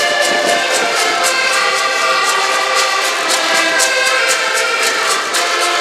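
A group of diatonic button accordions playing a tune together, with held reedy chords over a steady percussive beat of about three to four clicks a second.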